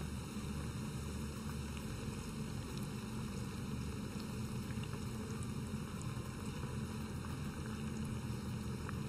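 Hollowed zucchini par-frying in a pan of hot vegetable oil: a steady sizzle as they are turned over with tongs.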